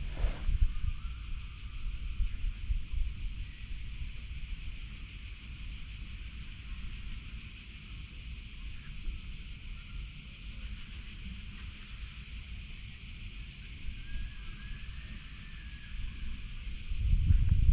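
Outdoor park ambience: a steady high-pitched hiss or drone, with wind rumbling on the microphone that swells into a louder gust near the end.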